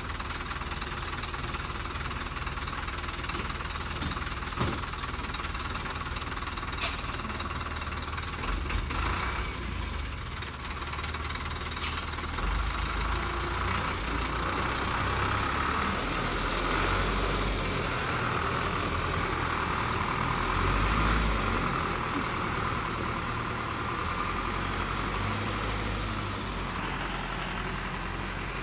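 Thaco Forland dump truck's diesel engine running while the tipper bed lowers, with a few sharp knocks in the first dozen seconds, then louder as the truck pulls away, easing off near the end.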